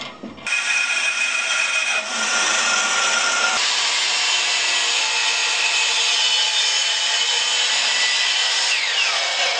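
DeWalt sliding miter saw running and cutting through a wooden board: a loud, steady motor-and-blade whine that starts abruptly about half a second in.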